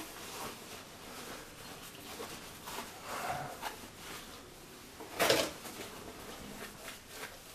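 Cloth rubbing and rustling as oil is wiped off the iron body of a new Juuma No. 6 bench plane, with a single louder knock about five seconds in as the plane is handled.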